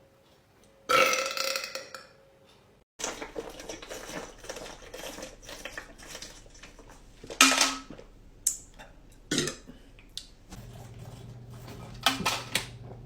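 Men burping: one long belch about a second in, then, across cuts between clips, several shorter burps and sharp bursts.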